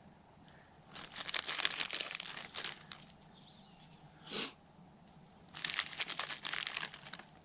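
Crackly rustling and crunching from hands working in a garden bed while planting onion sets, in two bursts of about two seconds each, with one short sound in between.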